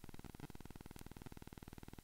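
Faint steady electrical buzz and hiss from a noisy recording microphone, with one sharp click about a second in, fitting a computer mouse click.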